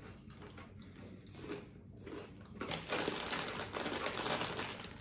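Crunchy chewing of food close to the microphone, with a denser, louder crackling stretch from a little past halfway to near the end.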